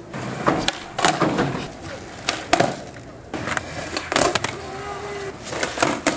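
Skateboards rolling and doing flip tricks on flat ground: a series of sharp pops and clacks as tails strike and boards land, over the rumble of the wheels.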